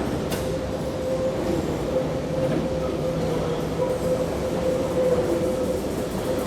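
London Underground train running on the rails: a steady rumble with a single held whine throughout, and a short click just after the start.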